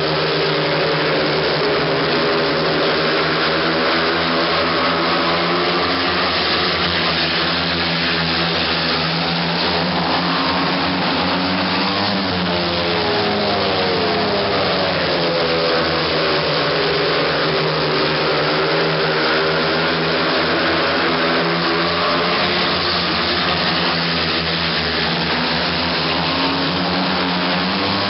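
Speedway motorcycles racing on a dirt oval. Their single-cylinder 500 cc methanol engines run loud and continuously, rising and falling in pitch as the bikes go through the bends and along the straights, with more than one engine heard at once.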